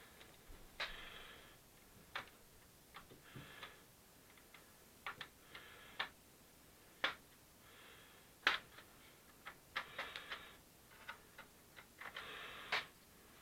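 Hand work on a Dynabook TV64 laptop's plastic bottom cover during disassembly: a string of sharp, irregular clicks with short scratchy scraping between them, as screws are worked and the cover's clips are pried loose.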